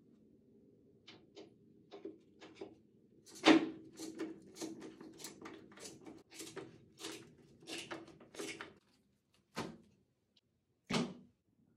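Ace skateboard trucks on the deck being worked by hand: a sharp metal knock, then a run of light clicks about three a second. Near the end there are two soft thumps as a packet of Ricta Clouds wheels is set down on a mat.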